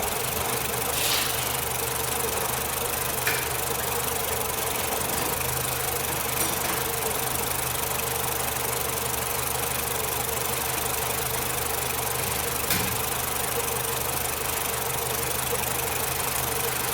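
Nissan Platina engine idling roughly with an intermittent misfire that comes and goes, making the engine shake; the mechanic suspects a failing ignition coil. A few light ticks sound over the steady running.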